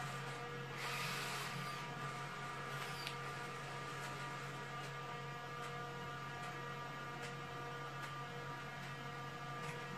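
A steady electrical hum made of several steady tones, with a brief hiss about a second in and a few faint clicks.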